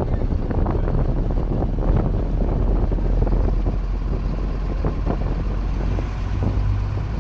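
A motor vehicle's engine running with a steady low hum while it drives, with wind buffeting the microphone and small irregular knocks and rattles.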